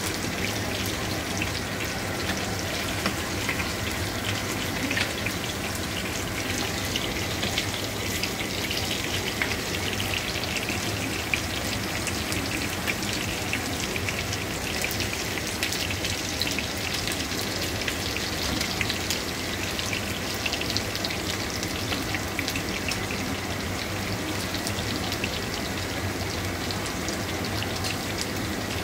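Chunks of pork sizzling in hot oil in a frying pan: a steady, dense crackle of tiny spattering pops.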